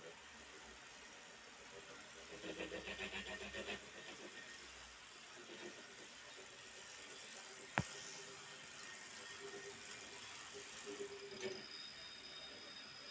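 Wahoo KICKR smart bike trainer running with an odd noise: a rhythmic pulsing, about five or six pulses a second for over a second near the start, then quieter steady running with one sharp click about eight seconds in.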